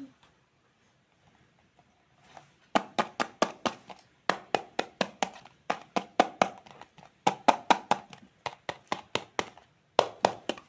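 Rapid, sharp plastic tapping from a toy knife and plastic toy fruit being cut, about five taps a second in short bursts with brief pauses, starting about two and a half seconds in.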